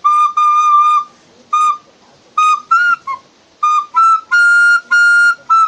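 Recorder playing a phrase of about a dozen high notes, mostly short and tongued, with two longer held notes toward the end. The high notes are played with the thumb hole released rather than half-covered, to show they sound the same.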